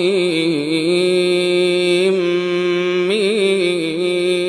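Quranic recitation (tajweed): a man's voice holds one long melodic note, with small ornamental turns near the start and about three seconds in. It is the drawn-out elongation (madd) of the opening letters Ṭā Sīn Mīm.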